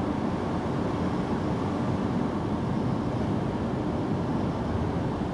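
A steady low background noise with no distinct events.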